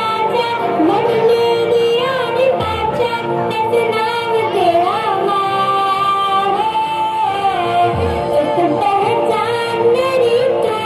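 A recorded Hindi song plays: a woman's voice sings a melody with long held and wavering notes over instrumental backing.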